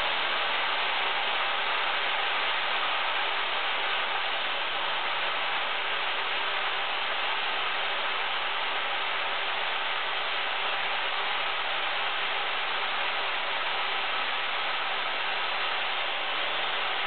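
Craftsman 2⅛ HP circular saw running steadily as it rips lengthwise through a knotty pine board, one long, even cut without a pause.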